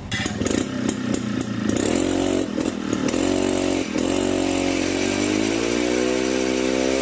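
Motor of a woodturning machine running, its pitch sagging and recovering several times as it is loaded. About five seconds in the pitch rises and then holds steady, with a hiss of cutting underneath throughout.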